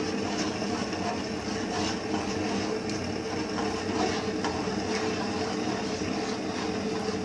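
Metal spoon scraping and tapping against an aluminium pot, with faint irregular clicks, as a thick ragi batter is stirred continuously on the stove. A steady machine hum runs underneath.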